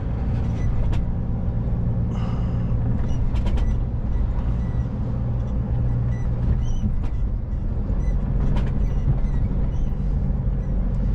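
Truck's diesel engine running steadily under way, heard from inside the cab, with road rumble and a few faint clicks.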